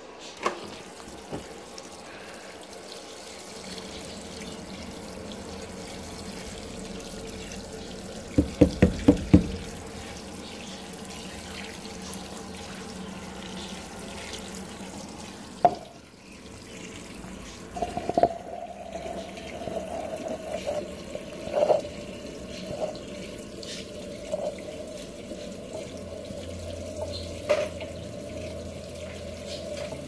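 Top-loading washing machine filling with water at the start of its cycle, a steady rush of water spraying into the tub. About a third of the way in comes a quick run of about six loud knocks, and about halfway a steady tone joins the water noise.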